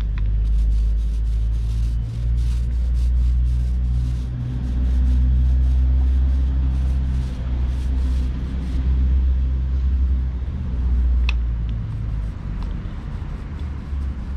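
A loud, steady low rumble, with the light repeated rasp of a small paint roller being worked over a steel boat hull, mostly in the first half.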